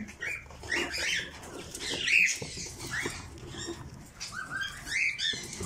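Chirping and squawking of many caged parrots, cockatiels and budgerigars, with short overlapping calls, plus a few brief knocks from a wooden nest box being handled.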